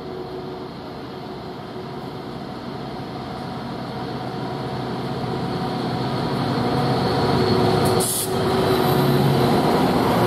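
Class 59 diesel-electric locomotive, its two-stroke V16 engine running under load as it hauls loaded aggregate hoppers, growing steadily louder as it approaches and passes close by. A brief sharp hiss about eight seconds in.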